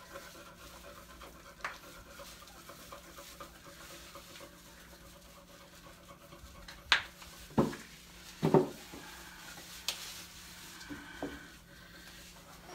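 Hands scrubbing shampoo lather into a wet beagle's coat in a tub of soapy water: soft wet rubbing and sloshing. Several short sharp sounds stand out about seven to ten seconds in.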